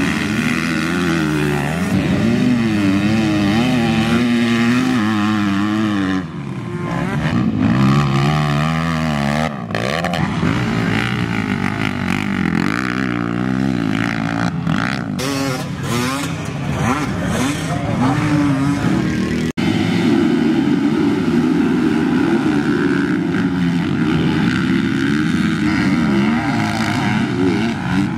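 Dirt bike engines revving hard, pitch rising and falling repeatedly as the riders work the throttle and shift through the turns. The sound changes abruptly several times, at shot changes.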